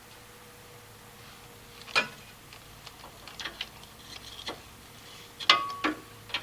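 Irregular metallic clicks and clinks of a hand wrench working a threaded spring shackle, loudest about two seconds in and again near the end, where one clink rings briefly.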